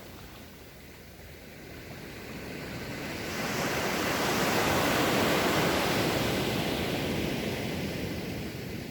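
Ocean surf: a wave building and breaking, its wash swelling from about two seconds in, loudest mid-way, then fading away.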